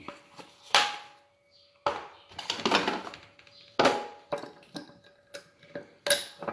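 Kitchen clatter of things being put away: about six separate knocks and clunks, with a longer noisy stretch of handling around three seconds in.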